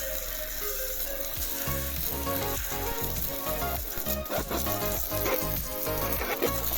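Background music with held notes and a pulsing bass line, over a constant hiss.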